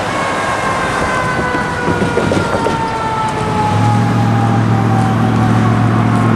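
Approaching freight locomotive's air horn sounding one long sustained blast, a chord of steady tones that slowly falls in pitch. A low steady rumble joins about halfway through.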